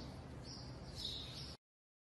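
Faint background hiss with short, high bird chirps twice, then the sound cuts out to complete silence near the end.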